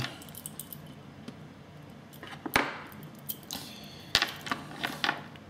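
Small tools, such as tweezers, being handled and set down on a workbench: a few scattered light clicks and taps, the sharpest about two and a half seconds in and again just after four seconds.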